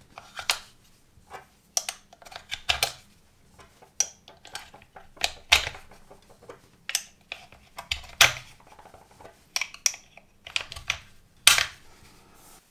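.308 Winchester cartridges being pushed one at a time into a polymer rifle box magazine: clicks and small scrapes of brass against the magazine, with a louder snap every two to three seconds as each round goes in.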